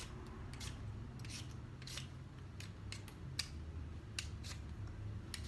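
Hand vegetable peeler scraping the skin off a potato: a run of short, quick scraping strokes at an uneven pace, a few a second.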